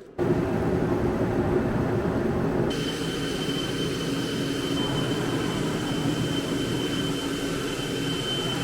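A motor-driven machine starts abruptly and runs steadily and loudly, with a thin high whine joining about a third of the way in.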